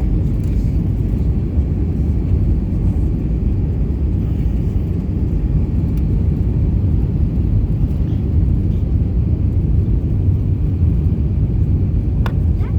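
Steady low rumble of an Airbus A320's engines and airflow, heard inside the passenger cabin, with one brief click near the end.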